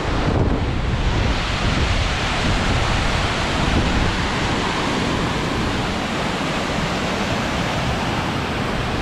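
Waterfall rushing steadily, a dense even roar, with wind gusting and buffeting the microphone in the low end.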